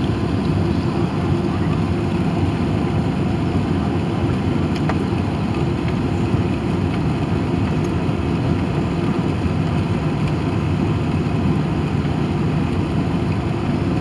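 Steady cabin noise inside an Airbus A380 descending on approach to land: a constant low rumble and rush of the engines and airflow, heard from a window seat over the wing.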